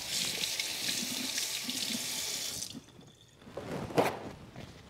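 Kitchen tap running as hands are rinsed under it, shut off a little past halfway. Near the end, a short loud tear of a paper towel sheet pulled off the roll.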